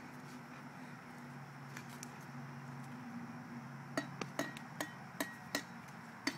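A small hand trowel tapping on the rim of a plastic bucket: a quick run of about eight sharp knocks over a little more than two seconds, starting about four seconds in.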